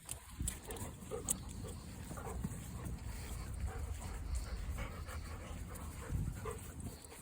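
Golden retriever panting.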